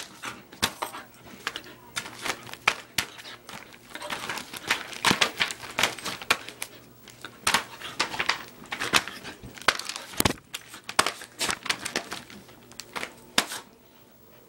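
Irregular rustling, crinkling and scuffing of bedding as a small dog scrabbles and thrashes on a bed, with many sharp clicks and knocks close to the phone.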